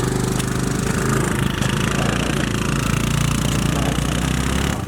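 Small scooter engine running steadily with a rapid pulsing beat; its lowest note drops away just before the end.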